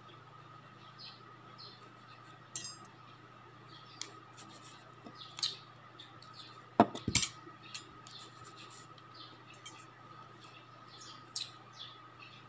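Small metal manicure tools clicking and tapping against fingernails in scattered single clicks, with a louder quick cluster of clicks a little past the middle. A faint steady hum runs underneath.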